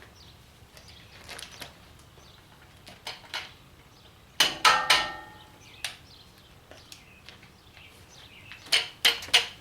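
Metal clanks and knocks from steel being handled: a loud clank with brief ringing about halfway through, a single knock a second later, and three quick knocks near the end. No grinder is running.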